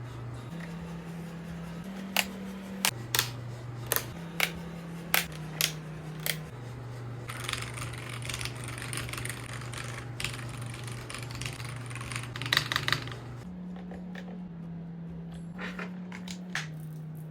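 Keys of a Kreo Hive98 mechanical keyboard being pressed: about eight separate sharp clacks, then a run of rapid typing lasting several seconds that ends in a loud cluster, then a few soft presses near the end. A quiet low bass line plays underneath.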